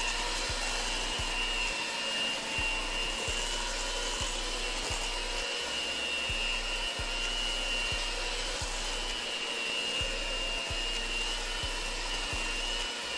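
Electric mixer running steadily with a high whine, whipping frosting.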